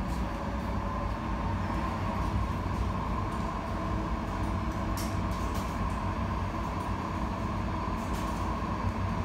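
Tram running between stops, heard from inside the car: a steady rumble of wheels on the rails with a constant hum. There are a couple of brief sharp rattles, one about five seconds in and another near eight seconds.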